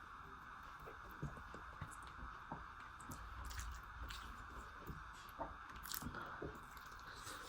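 Close-miked eating: a person chewing and biting food, with irregular small crunches and wet mouth clicks over a steady background hiss.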